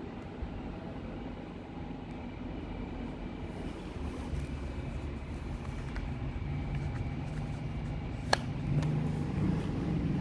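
Daikin FTC50NV14 wall-mounted air conditioner indoor unit running, a steady low rumble and fan noise that grows slightly louder toward the end, with one sharp click about eight seconds in.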